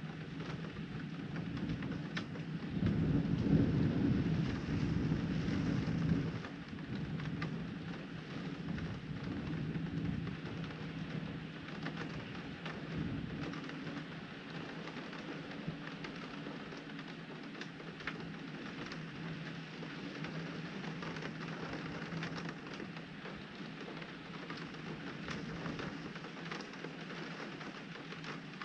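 Steady rain on a window pane, with a roll of thunder that swells about three seconds in and rumbles away over the next several seconds.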